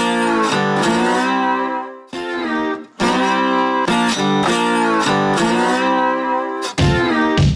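Background music led by guitar, with held notes that slide in pitch; it drops out briefly about two seconds in, then comes back.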